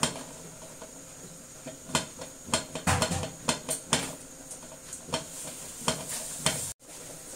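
Water simmering in a nonstick wok around blanching bok choy (pechay): irregular popping and ticking bubbles over a steady faint hiss.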